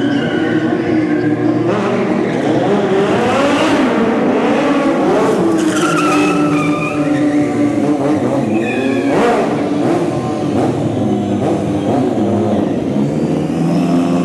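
Two sport motorcycles revving hard during stunt riding on a concrete floor, their engine pitch rising and falling again and again, with tires squealing and skidding.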